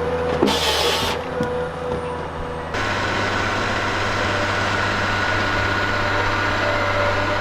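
A heavy forestry machine's diesel engine running steadily, with short hissy bursts in the first second. About three seconds in, the sound changes abruptly to a denser, steady engine noise.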